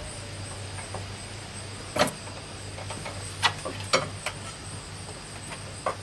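A few sharp metallic clicks and taps of a screwdriver and bolt against a snowblower's carburetor bowl during hand work, the loudest about two seconds in, over a steady low hum.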